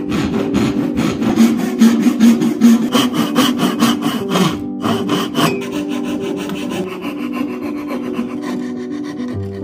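Hand sawing of dovetails: a brass-backed dovetail saw cutting wood in quick, repeated rasping strokes that stop about five and a half seconds in. Softer sawing follows, a coping saw cutting out the waste between the tails.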